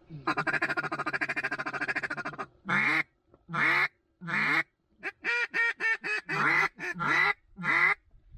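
Mallard duck call blown by a hunter: a rapid chatter lasting about two seconds (a feed chuckle), then three separate quacks and a quick run of about eight more quacks, calling to circling ducks.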